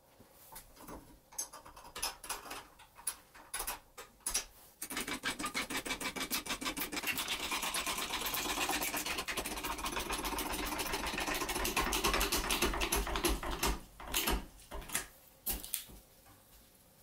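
An aluminium drink can crackling and crumpling for several seconds as a hydraulic bottle-jack press squeezes it flat. Scattered sharp clicks and knocks come before the crushing and a few louder ones near the end.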